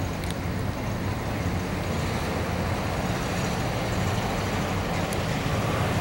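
Steady road traffic noise with a low engine hum of vehicles running on the roadway.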